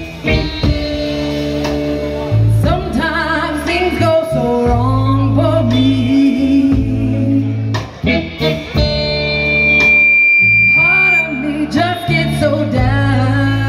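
Live band performing a song: a woman singing over electric guitar, electric bass and drums, her voice coming in a few seconds in.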